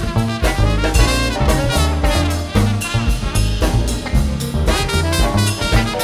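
Jazz band playing live, with trumpet and trombone out front in the horn section over bass notes and a drum kit with cymbals.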